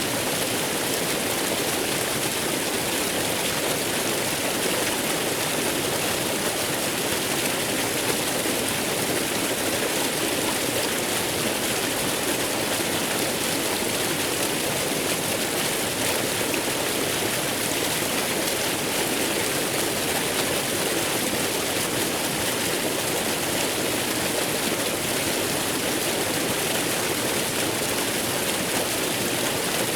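A waterfall's water rushing in a steady, unbroken roar.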